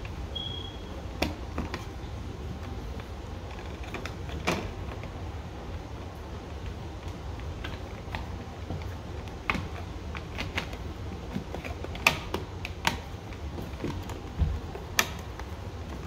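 Irregular clicks and taps of stiff insulated wires being bent and pushed into a plastic electrical box, over a steady low hum.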